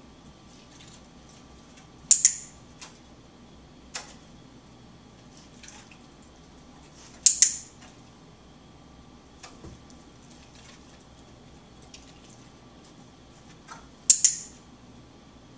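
Dog-training clicker pressed three times, several seconds apart, each a sharp double click-clack, marking the dog's behaviour during shaping. Fainter ticks and taps in between.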